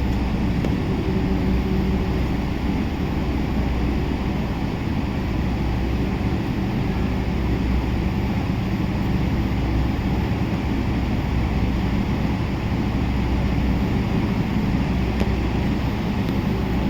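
Steady cabin noise inside a Boeing 777-300 in flight: a constant low hum and rush from the engines and the air over the fuselage.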